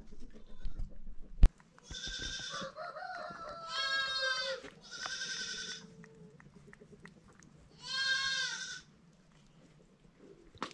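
Goats bleating: four separate calls spread over several seconds, the second with a wavering, quavering pitch. A single sharp knock comes just before the first bleat.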